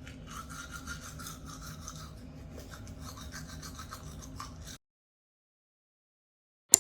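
Faint scratching and rubbing in a quick, uneven run of small ticks. It cuts off to dead silence nearly five seconds in, and a sharp click comes near the end.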